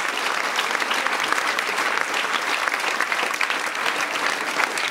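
A crowd of people clapping their hands in steady, sustained applause.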